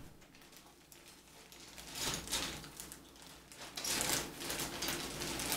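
Clear plastic parts bag crinkling and rustling as plastic model-kit sprues are handled and pulled out of it, in irregular crackles that pick up about two seconds in.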